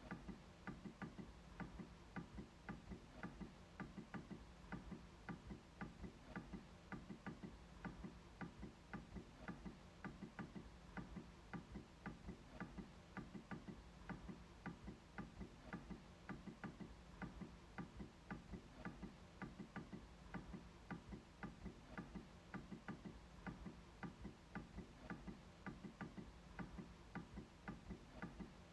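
MacBook trackpad being clicked in a steady, even run of faint clicks, about three a second.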